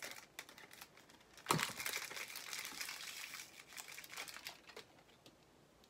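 Packaging wrapper crinkling and rustling as a small toy accessory is unwrapped by hand. It starts sharply about a second and a half in, carries on in uneven bursts, and fades out near the end.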